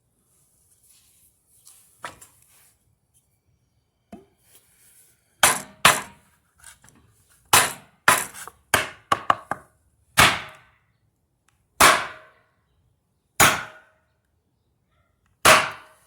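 Hammer blows on a wooden block, driving a part onto the transmission shaft of a Whirlpool top-load washer to seat it. About a dozen sharp knocks, each with a short ring: two close together, a quick flurry, then single blows about a second and a half apart.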